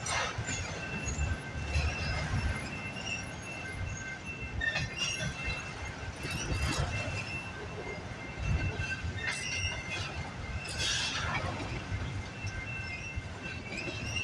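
Freight train of autorack cars rolling past: a continuous low rumble of steel wheels on rail, with a steady high-pitched wheel squeal and a few sharp clanks from the cars.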